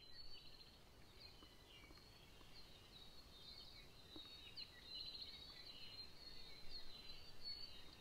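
Faint birdsong from several small forest birds, a scatter of short high chirps and quick trills.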